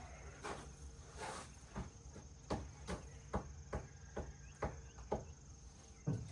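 A string of light knocks and taps, roughly two a second, from a person climbing aboard and shifting about in a small boat, over a faint steady high-pitched tone.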